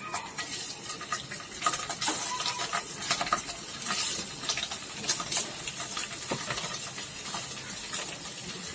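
Paneer cubes sizzling in a little hot oil in a non-stick frying pan as they are set down one by one, with many small taps and clicks of the cubes against the pan over a steady sizzle.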